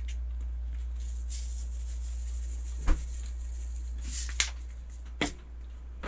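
Plastic salt shaker being opened and shaken, salt pattering out in short hissy spells, with a few light clicks and knocks of the plastic cap and shaker. A steady low hum runs underneath.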